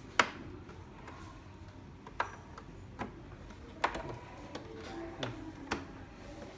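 Sharp plastic clicks and snaps as the top cover panel of a Melitta Passione coffee machine is worked loose by hand, about six clicks spread over a few seconds, the first the loudest.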